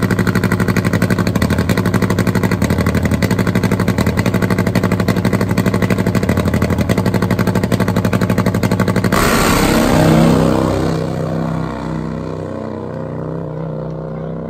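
Nitro-methane-fuelled, injected 134-cubic-inch Harley-style V-twin drag bike running at the starting line with rapid, even firing pulses. About nine seconds in it launches at full throttle, a sudden loud blast that peaks and then fades as the bike runs away down the track.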